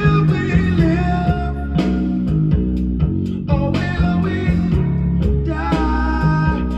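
Rock-blues song with singing and guitar over a steady bass line, playing loudly without a break while it is being recorded onto a cassette deck.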